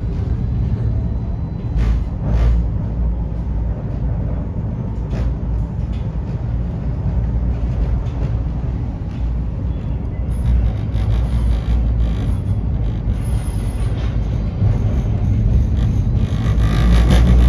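Steady low rumble of vehicle running noise with a few short knocks.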